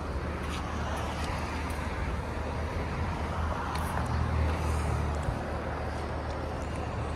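Toyota Yaris Cross engine idling: a steady low hum that swells a little around the middle.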